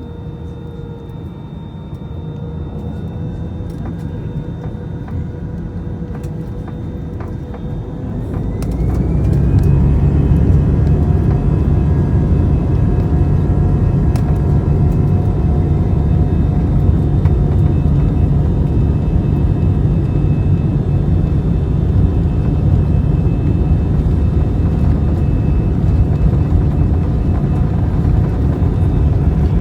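Airliner engines spooling up to takeoff power: a whine rises about eight seconds in and the sound swells into a loud, steady low rumble with high whining tones over it, the sound of the takeoff run.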